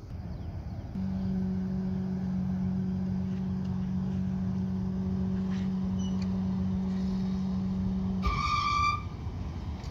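A river ferry's steady low drone holding one pitch over a low rumble, starting suddenly about a second in and cutting off abruptly about eight seconds in. A short, higher beep follows just after it.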